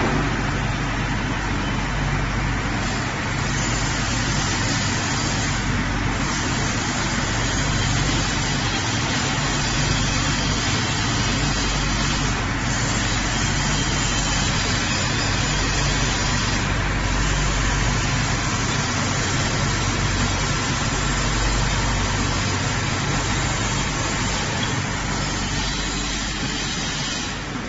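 Shoe chiller machine running: a steady rushing noise over a low, even hum.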